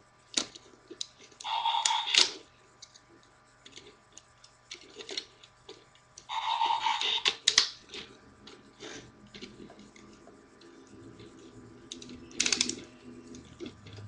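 Plastic parts of a Transformers Dark of the Moon Starscream action figure clicking and rattling as it is twisted and folded by hand. Scattered sharp clicks, with two louder, longer stretches of handling about a second and a half in and about six seconds in, and a quick cluster of clicks near the end.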